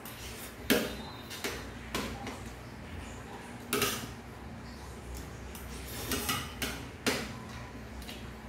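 Metal spoon and fork clinking and scraping against a plate while eating noodles, in irregular sharp clinks, the loudest about a second in.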